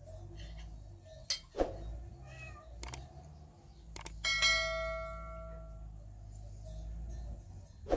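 Subscribe-button sound effect: a mouse click about four seconds in, then a bell dings once and rings out for about a second and a half. Before it, a few light knocks and clinks of dishes and cups over a low steady hum.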